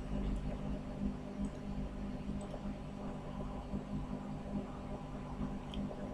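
Steady low hum with a faint hiss: room tone, with no other sound.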